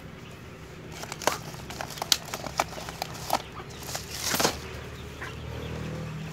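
Chickens clucking in a run of short calls, along with the rustle of woven plastic feed sacks being handled and rolled up.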